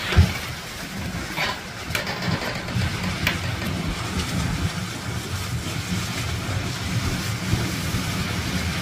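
Steady low rumble of a vehicle engine idling, with a few sharp knocks in the first few seconds.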